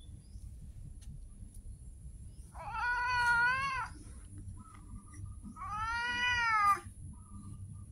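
A cat meowing twice: two drawn-out meows, each about a second long, the second following about two seconds after the first.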